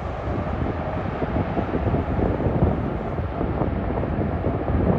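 Low, steady jet airliner rumble mixed with wind buffeting the microphone.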